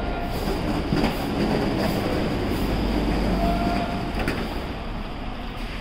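A train passing: a steady rumble with a few clacks and a thin squeal that comes in twice.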